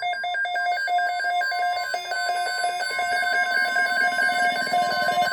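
Emergency alert attention tone: a loud, continuous electronic warble that switches rapidly between two pitches, much like a telephone ring, sounding ahead of a spoken alert message.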